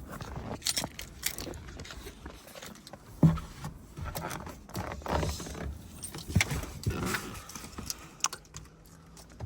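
A string of light clicks and rattles, like keys and small parts being handled, with one louder knock about three seconds in.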